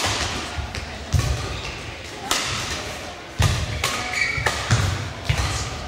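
Badminton rally: sharp racket strikes on the shuttlecock, roughly a second apart, among heavy thudding footfalls and lunges on the court floor, with a brief shoe squeak.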